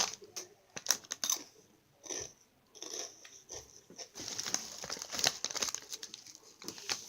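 Crinkly packaging rustling and crackling in irregular bursts as it is handled. There is a short lull about two seconds in, then denser crinkling from about four seconds on.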